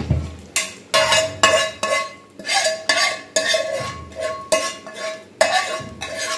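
Steel spoon scraping and knocking against a frying pan, emptying hot ghee tempering onto pongal in a pressure cooker: a run of quick metallic scrapes and ringing clinks, about two a second.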